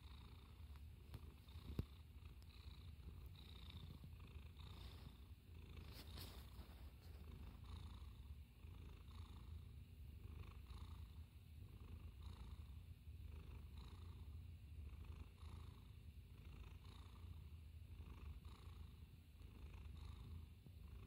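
Domestic cat purring softly and steadily, the purr swelling and easing with each breath, a little more than once a second.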